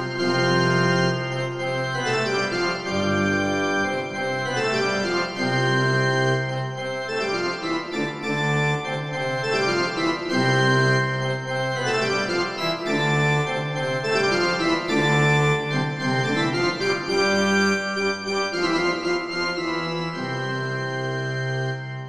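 Pipe organ playing a piece in several parts: held bass notes that change every second or two beneath sustained chords and a moving upper line. The music breaks off at the very end.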